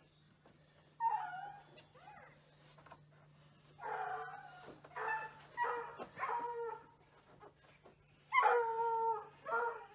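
A dog whining in about seven short, high, pitched cries, the first about a second in and the last near the end, over a steady low hum.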